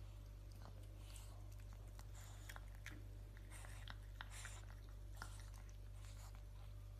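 Pug puppy eating dry kibble from a bowl: faint, scattered crunching with small clicks of kibble against the bowl, over a steady low hum.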